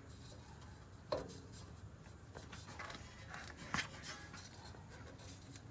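Faint rubbing and handling noise from an oil filter being unscrewed by hand, with two light knocks, the first about a second in with a short ring after it.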